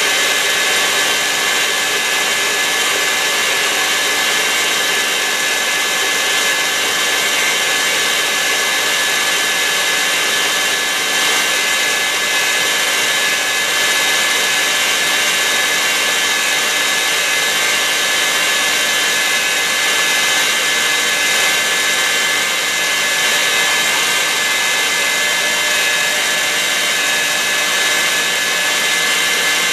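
KitchenAid Heavy Duty stand mixer running steadily, its wire whisk beating egg whites to a foam in a stainless steel bowl. A constant motor and gear whine with a steady high tone, unchanging throughout.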